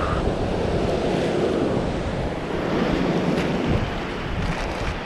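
Ocean surf washing on the beach, with wind buffeting the microphone.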